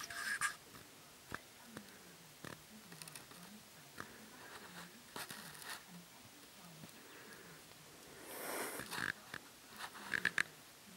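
Young kitten, about two and a half weeks old, playing with and biting at a finger on carpet: soft scratches and rustles, with short high squeaky mews right at the start and again about ten seconds in.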